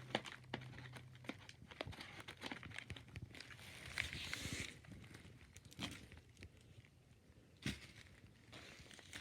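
Rustling and crinkling of paper and plastic gift packaging being handled, with scattered light taps and clicks, a longer rustle about four seconds in and a sharper knock near the end.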